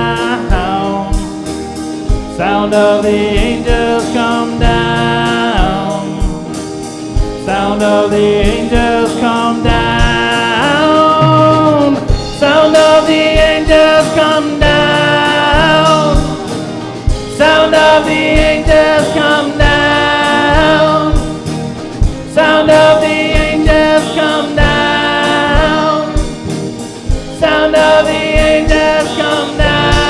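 Live worship band playing a gospel-style song: drum kit, guitars, bass and keyboard under sung phrases that repeat every few seconds.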